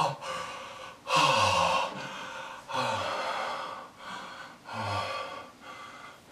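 A man groaning with heavy, breathy exhales: three drawn-out groans, each falling in pitch, with panting breaths between.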